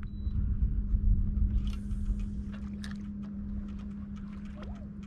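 Steady hum of the kayak's Minn Kota electric trolling motor, under a low rumble that eases off after the first couple of seconds, with scattered light ticks.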